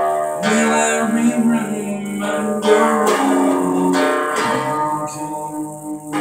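Electric guitar being played: picked notes and chords that ring over one another, with a new attack about every second.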